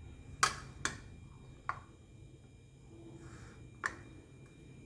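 A few light, sharp clicks and taps from kitchen utensils being handled, about four of them spread over a few seconds.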